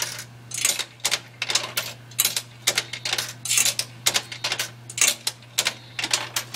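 Vending machine mechanism running through a vend cycle: a rapid, irregular clatter of sharp mechanical clicks over a steady low hum.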